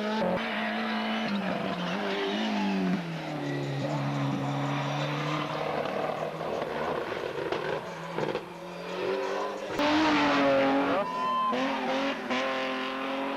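Racing car engine on a hillclimb run. The revs drop in the first few seconds and hold low, then the engine revs up hard about ten seconds in, its loudest point. After that the pitch climbs and falls again, as with gear changes.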